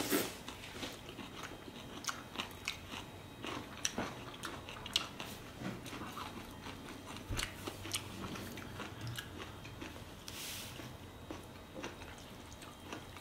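Chewing and crunching of food at a meal, with scattered small clicks and taps. A short rustle comes about ten and a half seconds in.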